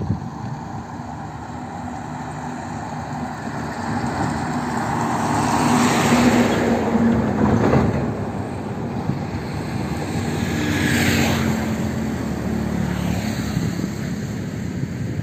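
Road traffic passing over a highway bridge: engine hum and tyre noise swell as vehicles go by, loudest about six to eight seconds in and again around eleven seconds in.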